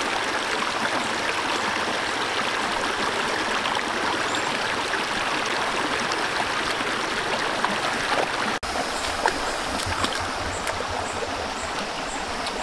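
Shallow stream running steadily over rocks. The sound breaks off for an instant about two-thirds through and picks up again with more low rumble in the water noise.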